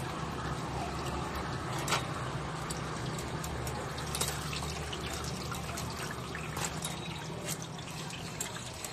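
Oil sizzling and crackling steadily as pan-fried buns (shui jian bao) fry in a flat pan, over a low steady hum.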